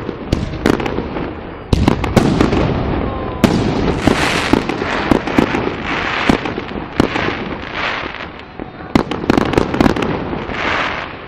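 Fireworks going off: repeated sharp bangs of bursting shells with bursts of crackling and hissing between them, thinning out near the end.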